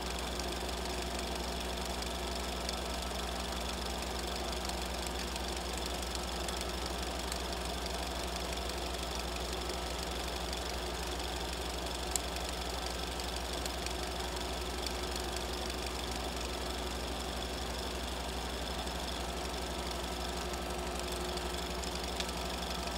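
A steady low hum with hiss, unchanging throughout, with a single faint click about twelve seconds in.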